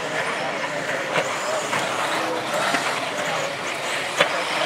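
Electric 4WD RC off-road buggies racing on a dirt track: motor whine and tyres on dirt, with a sharp knock about four seconds in.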